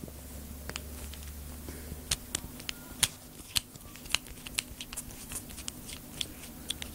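Irregular small clicks and taps of a screwdriver and plastic parts being handled while the screws are undone to get an RC car's differential out, over a faint steady hum.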